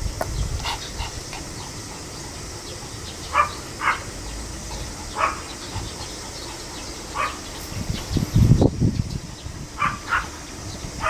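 Pomeranian barking: about eight short, sharp barks at irregular gaps, two pairs close together. A loud low rumble of handling or wind noise comes about eight and a half seconds in.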